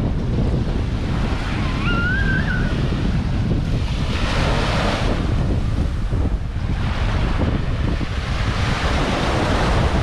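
Wind buffeting the microphone over small waves breaking and washing up the beach. The surf swells up about four seconds in and again near the end. A faint, brief high gliding call comes about two seconds in.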